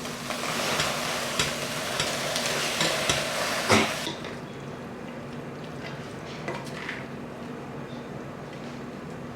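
Food sizzling in a hot pan while being stirred, with sharp clicks of the utensil against the pan. About four seconds in the sizzle drops away, leaving a few scattered clicks.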